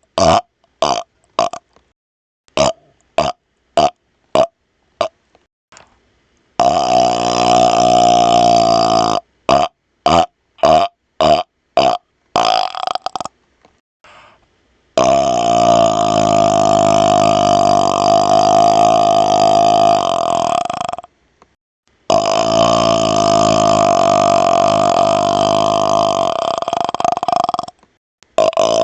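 A man burping on command: a quick string of about a dozen short burps, then a pitched belch of a couple of seconds, another run of short burps, and two long, drawn-out belches of about six seconds each.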